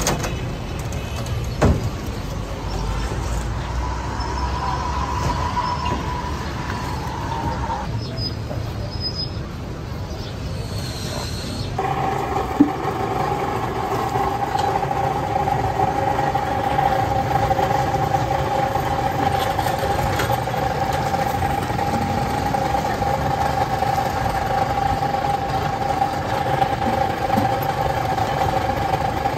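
Street traffic noise with a steady motor hum that settles in about twelve seconds in, and a couple of sharp clicks.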